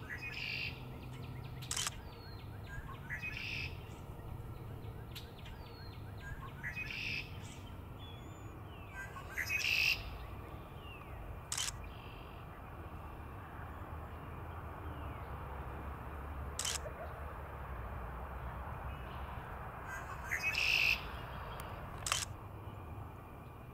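Male red-winged blackbirds singing their conk-la-ree song, a short burst every few seconds, the loudest about ten seconds in and near the end. A few sharp clicks fall between the songs.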